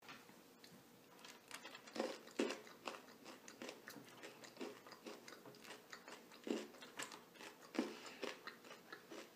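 A person eating small pieces of food straight off a wooden tabletop with her mouth, close to the microphone: irregular crunching and chewing, with a few louder crunches about two seconds in and again near the end.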